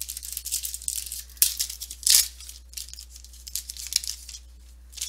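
Glossy trading cards being flipped and slid past each other by hand, a run of quick rustles and flicks with a sharp click about a second and a half in and a louder swish about two seconds in. A steady low hum runs underneath.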